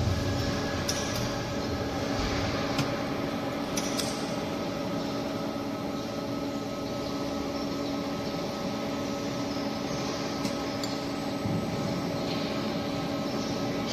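Steady hum of a hydraulic wheelset press's power unit running, with a few light clicks.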